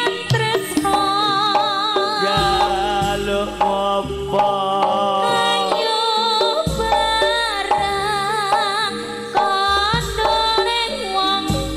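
Javanese gamelan ensemble (karawitan) playing a tayub song: steady gamelan tones and kendang drumming under a wavering, ornamented melody line.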